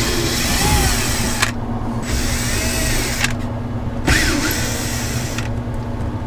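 Cordless drill-driver running in three spurts of a second or so each, with short pauses between, backing out the screws that hold a cabin trim panel.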